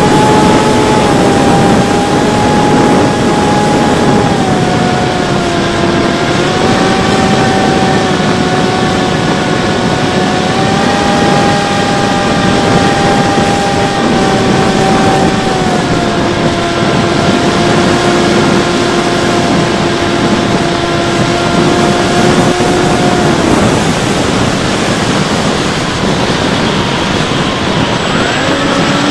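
Bixler 3 RC plane's electric motor and propeller whining, shifting up and down in pitch a few times with the throttle, over a constant rush of wind on the onboard camera. The motor tone stops about 23 seconds in, leaving only the wind.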